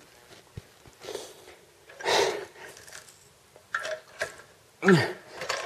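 A man breathing hard in short, forceful exhales and sniffs as he strains against the jammed lever of a manual fry cutter, with a short falling groan near the end.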